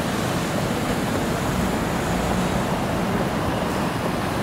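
Steady city street traffic noise from passing cars and buses, with wind rushing over the microphone.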